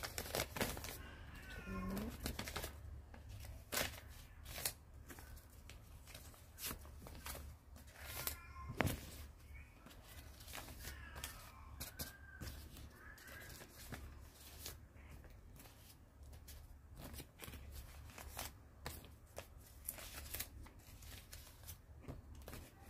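Paper banknotes rustling, crackling and snapping as they are handled and sorted in the hands, with irregular sharp clicks. A few brief high gliding calls sound faintly in the background.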